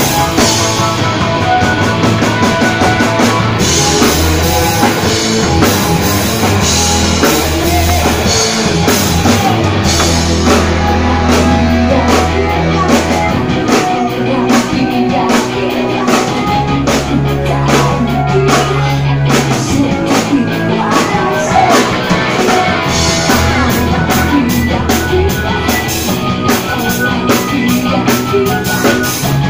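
Live rock band playing loud: a woman singing into a microphone over distorted electric guitars, bass and a drum kit beating steadily.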